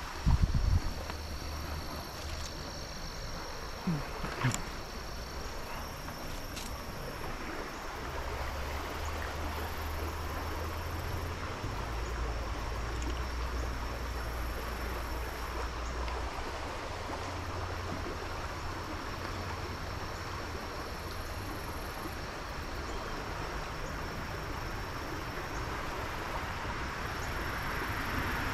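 Steady rush of flowing creek water, with a low rumble underneath and a couple of sharp knocks in the first few seconds.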